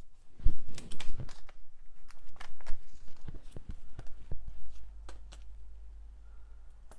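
Hands handling and pressing cardstock and paper pieces on a craft mat: a run of small taps, clicks and paper rustles, busiest in the first second and a half and thinning out after about five seconds.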